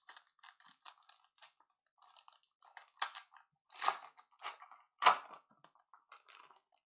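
Trading cards and their foil pack being handled, a run of short crinkles and clicks with louder crackles about three, four and five seconds in.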